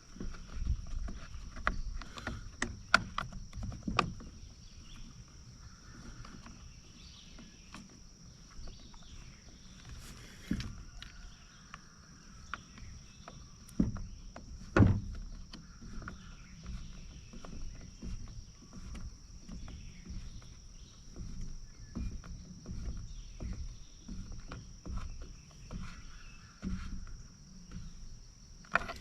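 Scattered clicks and knocks of hand tools, screws and the plastic housing being handled while a Husqvarna 326 LD string trimmer is worked on, busiest in the first few seconds and again around the middle, with a faint steady high tone underneath.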